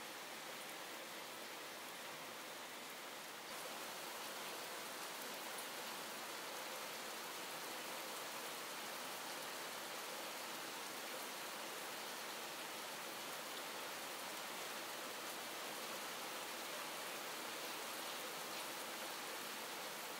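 Calm, steady rain falling, an even hiss that gets slightly louder about three and a half seconds in.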